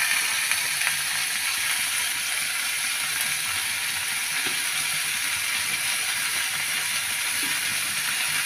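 Chopped radish greens frying in vegetable oil in a kadai on a gas burner: a steady sizzle.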